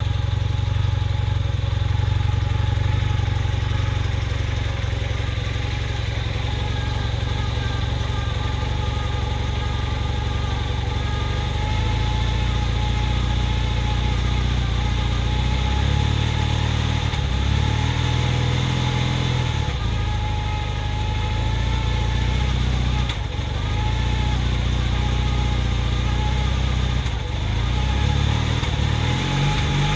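1981 Honda CM400T's air-cooled parallel-twin engine idling, its speed wavering a little in the middle and near the end. It has a slight misfire, which the owner reports after a top-end rebuild.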